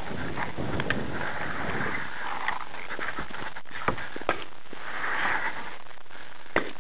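Paintball markers firing: sharp single pops at irregular intervals, the loudest three a little before the middle, shortly after, and near the end, over a steady background hiss.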